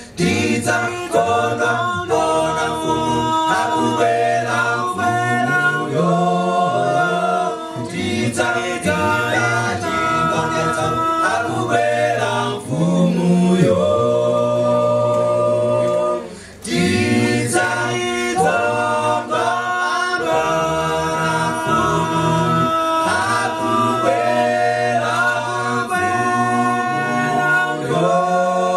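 Male a cappella group singing a gospel song in close harmony through microphones, with deep bass voices under sustained chords. The singing breaks off for a moment about sixteen seconds in, then carries on.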